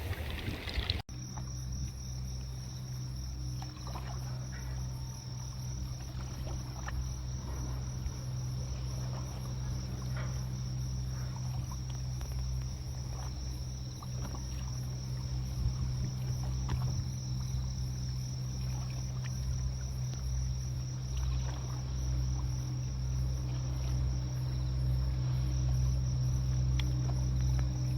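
A steady chorus of crickets chirping, over a low steady hum, with a few faint ticks here and there.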